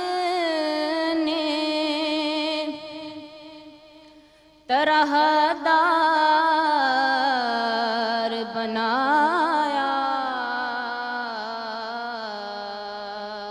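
A woman singing an Urdu naat, a devotional poem in praise of the Prophet Muhammad, in long, ornamented held phrases. Her voice fades away about three seconds in and comes back strongly almost two seconds later.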